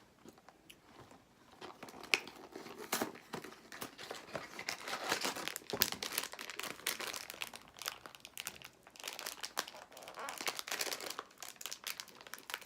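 Plastic snack wrapper being opened and crinkled by hand, crackling almost continuously from about two seconds in, with a sharp snap as it starts.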